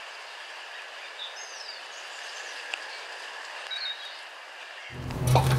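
Quiet outdoor ambience: a steady hiss with a few faint bird chirps. About five seconds in, louder knocking and clattering begin over a steady low hum.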